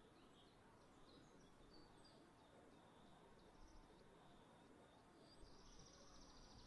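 Faint, scattered high chirps of small birds over a low outdoor hiss, with a high, rapid buzzing trill starting about five and a half seconds in.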